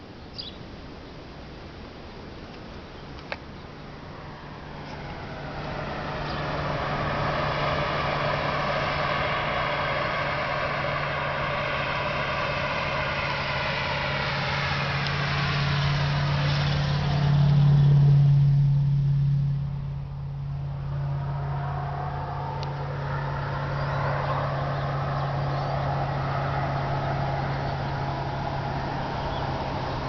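An engine passing by: a steady low drone with a hiss that swells over about fifteen seconds, is loudest about eighteen seconds in, then drops off and carries on more softly.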